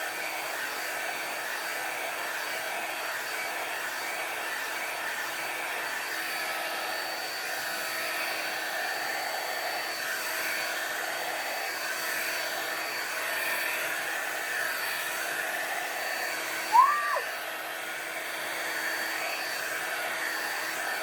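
New handheld hair dryer running steadily with a styling attachment fitted while it is worked through natural hair. It makes an even blowing noise with a constant faint whine. About 17 s in there is one brief pitched sound that rises and falls.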